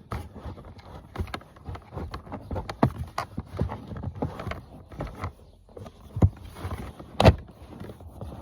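Irregular clicks and knocks of car interior trim parts being handled and fitted back into place, with a sharper knock about seven seconds in.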